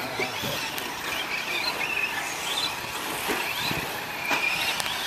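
Electric radio-controlled short-course trucks racing, their motors giving a high whine that rises and falls in pitch as they speed up and slow down.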